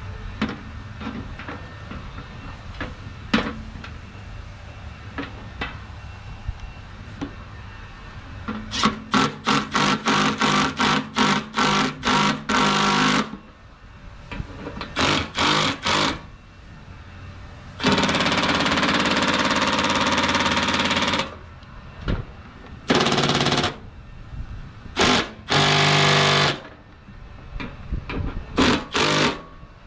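Cordless power drill driving screws into a sheet-metal furnace blower housing. It starts with light handling clicks, then a quick series of short trigger bursts, then a steady run of about three seconds, and a few more short bursts near the end.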